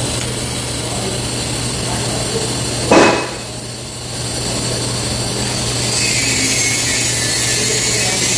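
TIG welding arc on 4130 chromoly steel: a short loud crackle about three seconds in as the arc is struck, then a steady hiss from the arc that grows brighter from about six seconds, over a constant low hum.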